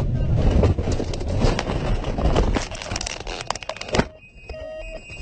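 Cessna 208 skydiving plane crash-landing: dense rattling and crunching impacts with many sharp cracks, easing after about two and a half seconds. A single sharp bang about four seconds in, after which the noise drops away.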